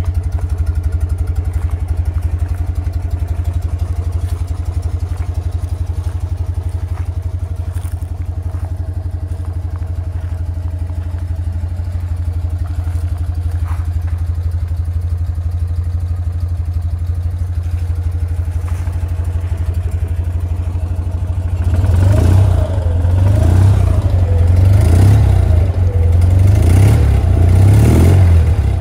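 1969 BMW R60/2's flat-twin engine idling steadily just after a cold start. Late on it gets louder and the revs rise and fall several times.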